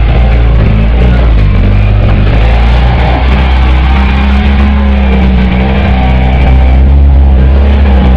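A small hatchback's engine revving as the car slides around on dirt, under loud background music.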